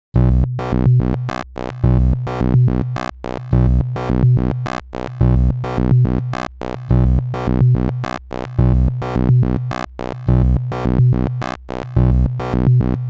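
Electronic synthesizer music starting suddenly out of silence, with a heavy bass and a pulsing pattern of chopped notes that repeats about every second and a quarter.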